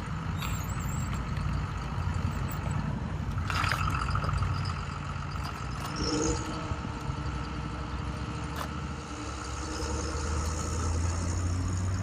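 A motor vehicle engine running steadily: a continuous low hum, with a higher steady tone joining about six seconds in.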